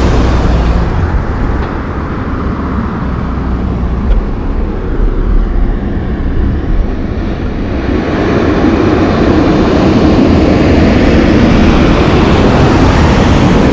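An empty logging truck's diesel engine and tyres pass close by and fade within the first second or so, leaving quieter traffic noise. From about eight seconds in, a loaded Western Star logging truck approaches, its engine and tyre noise growing louder until it is passing close by.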